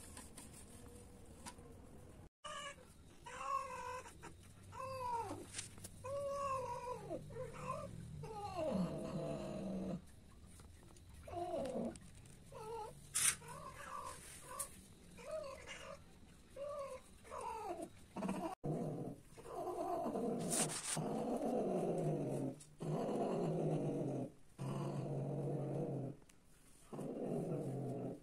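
Domestic cats caterwauling while mating, a female in heat with a tom: first a run of short wavering meows, then long drawn-out yowls broken by brief pauses.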